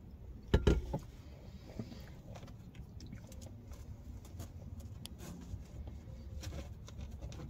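A brief cluster of loud knocks about half a second in, followed by light clicks and scrapes of a plastic fork working food in a plastic takeout container.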